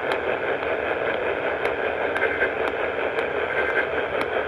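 Radio static: a steady hiss with faint crackles, with no voice on the broadcast.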